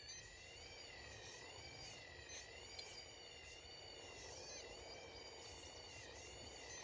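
Remote-control model excavator's motor whining faintly as it works the arm and bucket, its pitch rising and falling again and again with the changing load.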